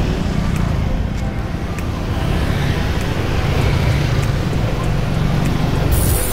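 Motorbike riding through city traffic: a steady low rumble from the moving bike and the road, with a short burst of hiss near the end.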